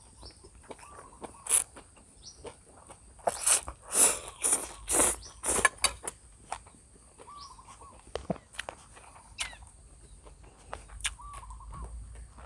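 Close-up eating sounds: mouth clicks, smacks and slurps of instant noodles being eaten, thickest a few seconds in. A few short bird calls sound faintly behind them.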